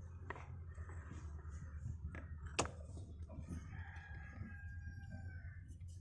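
A rooster crowing, one long drawn-out call in the second half, over a steady low hum. A few sharp clicks of tool or part handling, the loudest about two and a half seconds in.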